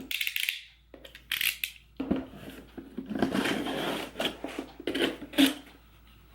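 A mailed parcel being opened by hand: packaging rustling and crinkling in irregular bursts, with sharp little clicks and knocks as it is handled.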